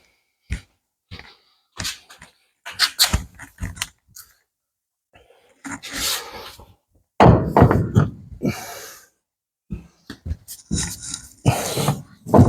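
Irregular knocks, thunks and scraping from parts and tools being handled while working on a car, in short separate strokes with gaps between, and a longer rough scrape about seven seconds in.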